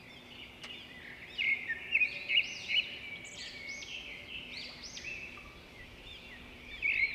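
Birds chirping: many quick, high chirps overlapping, with louder bursts between one and three seconds in and again near the end.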